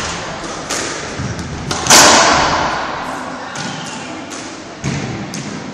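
Squash ball and racket impacts echoing around a squash court: a string of sharp smacks, with one loud bang about two seconds in that rings on for over a second.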